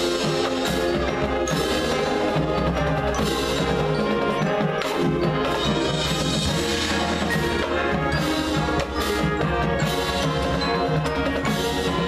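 Marching band playing its field show: held brass and wind chords with the front ensemble's marimbas, xylophones and drums striking over them.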